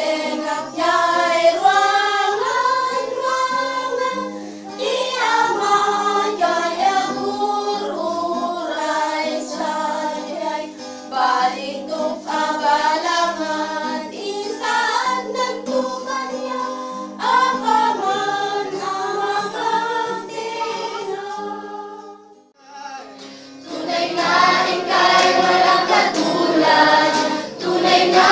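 A small group of women singing a hymn together with acoustic guitar accompaniment. About 22 seconds in it breaks off briefly, and a larger congregation takes up the singing, louder.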